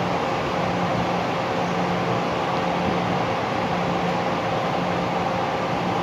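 Steady mechanical hum and hiss, with a low tone that drops out and comes back every second or so.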